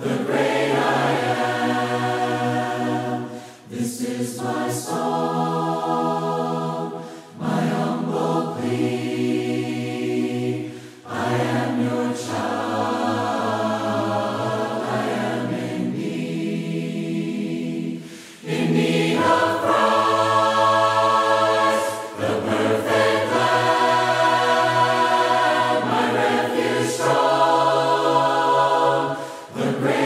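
A choir singing a hymn in parts, unaccompanied, in sung phrases of a few seconds with brief breaks between them.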